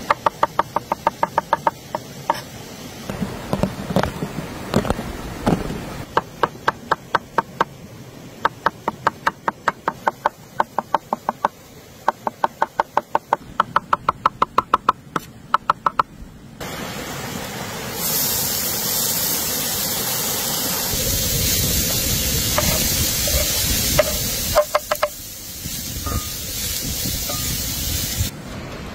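Knife chopping quickly on a wooden cutting board, several strikes a second with a short ringing tone from the blade, for about the first sixteen seconds. Then chopped food sizzling steadily in a hot cast-iron frying pan as it is stirred with a wooden spoon, with a few knocks, the sizzle stopping just before the end.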